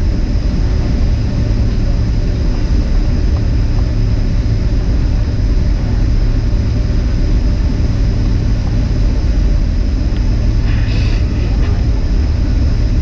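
Boeing 767 cabin noise: a loud, steady low rumble of the jet's engines and airflow heard from inside the passenger cabin, with a faint steady high whine and a short higher sound near the end.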